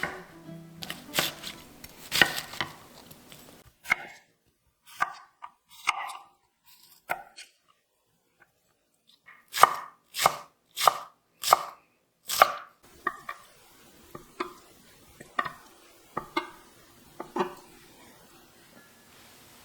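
Knife chopping food on a cutting board: a few scattered chops, then a quick run of about six firm chops, then lighter chops at a slower pace.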